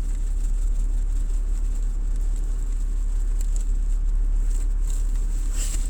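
Steady low rumble of a motor vehicle running, with a thin high whine over it and a light click near the end.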